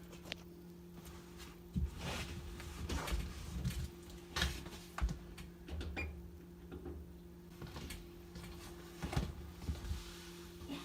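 Scattered knocks and clunks of handling, about a dozen at irregular intervals, over a steady low hum.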